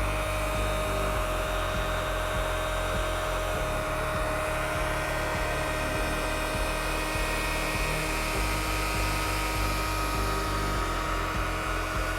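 Ilco Mini Mite 008A key duplicating machine's electric motor running steadily, spinning its cutter, with a steady hum of several fixed tones over a low rumble.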